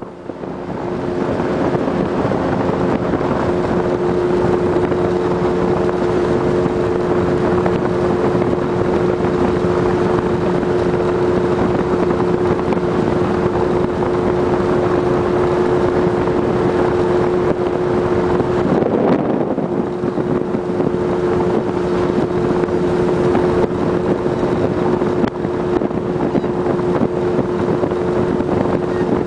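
A motorboat's engine running steadily at speed, a constant hum over the rush of water and wind on the microphone. Its note wavers briefly about two-thirds of the way through.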